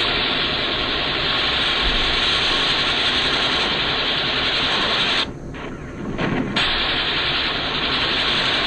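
Loud, dense mechanical rattle on an old archival war-film soundtrack, breaking off for about a second just past the middle before resuming.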